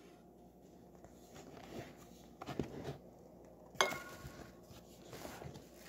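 Faint rustling and handling of a large printed card fold-out from a vinyl record set as it is opened out, with a few soft scrapes and one sharp tap a little under four seconds in.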